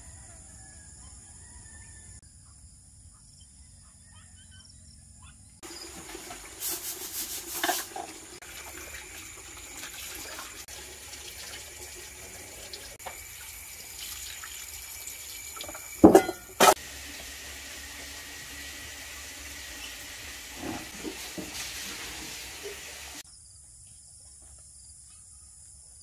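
Water running from a tap as things are rinsed, with scattered clatters and two sharp knocks about two-thirds of the way through. Before and after the water, a steady high insect buzz.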